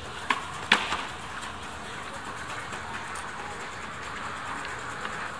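Two sharp clacks about half a second apart in the first second, then the steady hubbub of a busy pedestrian street.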